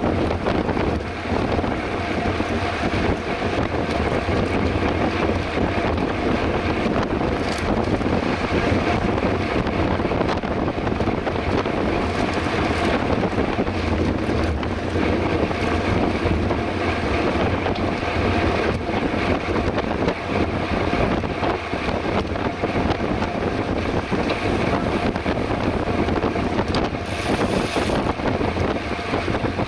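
Steady rush of wind buffeting the microphone, with road noise from a mountain bike riding at race pace.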